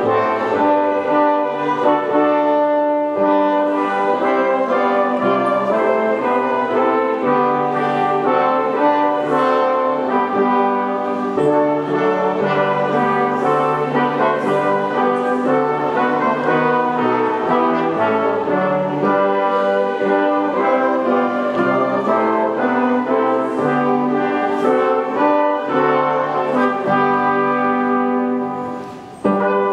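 Brass ensemble playing a processional piece in slow, held chords. The sound dips briefly near the end and comes straight back.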